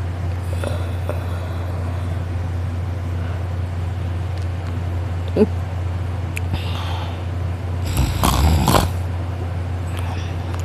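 A sleeping man snoring hard: one loud snore about eight seconds in, with fainter breathing sounds before it, over a steady low hum.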